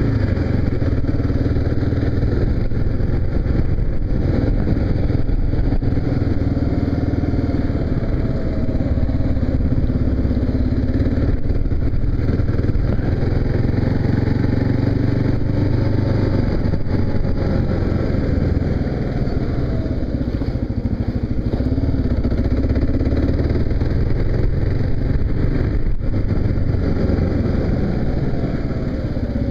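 Kawasaki KLR motorcycle engine running steadily under way, its pitch rising slowly about halfway through and falling again a few seconds later as the speed changes.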